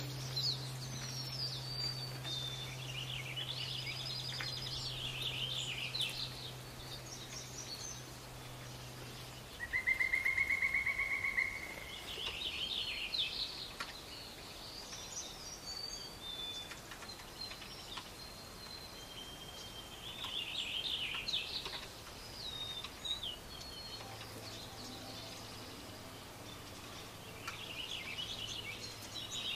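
Songbirds chirping and warbling on and off. About ten seconds in comes a loud, rapid trill lasting about two seconds. Under it runs a low steady hum that drops out after the trill begins and comes back near the end.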